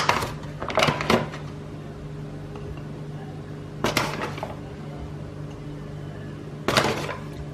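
Flour being spooned into a glass of cocoa powder, heard as a few short scraping and tapping sounds: near the start, around a second in, midway and near the end. A steady low hum runs underneath.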